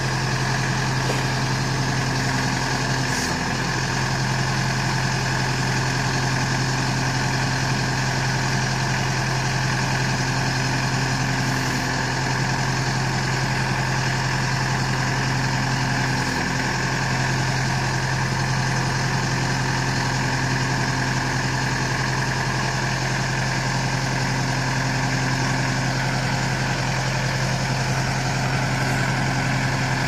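Diesel engine of a 47-horsepower LS 4047 compact tractor running steadily at an even, unchanging pitch while the backhoe is worked.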